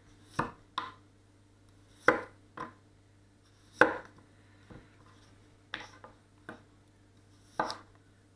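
Chef's knife (a 230 mm gyuto) slicing rounds off a sweet potato, each cut ending in a sharp knock of the blade on a wooden cutting board. There are about five cuts, one every second and a half to two seconds, several followed by a lighter tap.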